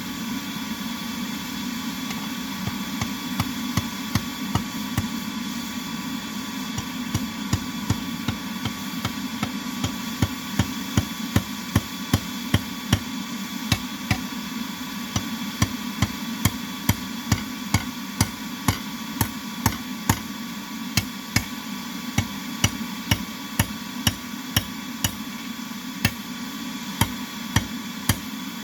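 Hand hammer forging metal on an anvil: regular blows at about two to three a second, light at first and heavier from about a third of the way in, with a few short pauses. A steady hum runs underneath.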